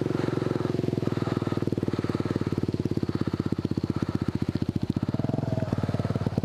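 Single-cylinder dual-sport motorcycle engine idling close by, with an even, rapid firing pulse.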